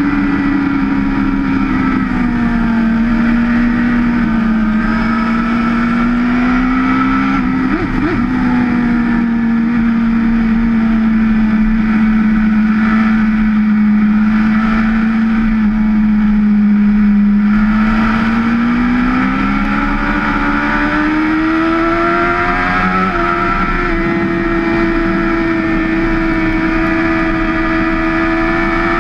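BMW S1000RR superbike's inline-four engine running hard on track, heard from on the bike with wind rushing past. The engine note holds fairly steady through a long corner, with a brief blip about eight seconds in. From about eighteen seconds in it climbs as the bike accelerates, then holds at the higher pitch.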